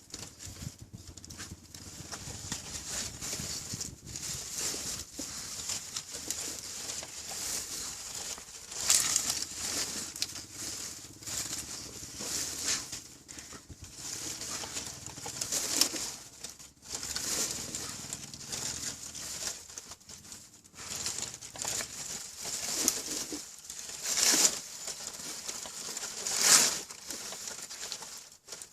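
Dog rustling and scraping while hiding a duck-carcass bone, irregular scratchy bursts of noise with several louder ones in the second half.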